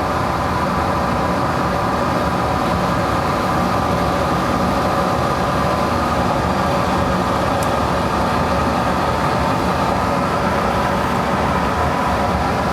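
Monarch 10EE metal lathe running steadily at about 500–600 RPM, a steady hum with several steady tones, while a carbide insert takes a light turning cut on the plug of a cast locomotive driver centre.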